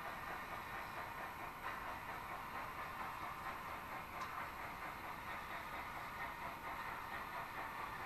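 Model trains running on a layout, a steady even running noise with no single event standing out.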